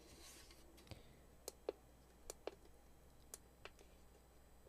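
Faint, irregular clicks, about eight of them, from the push-buttons on the control panel of a battery-powered DJ LED uplight being pressed while it is being switched on and set up.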